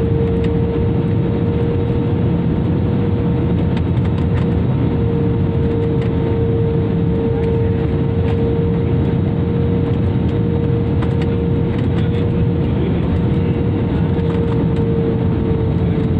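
Jet airliner cabin noise in flight: the steady roar of the wing-mounted turbofan engines and rushing air, with a steady droning tone that dips slightly near the end.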